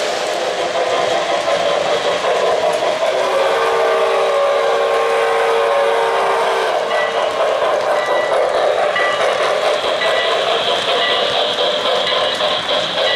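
O-gauge three-rail model trains rolling along the track with a steady running noise. A few seconds in, a locomotive's onboard sound system blows a steady whistle of several tones for about three seconds, followed by a row of short high dings.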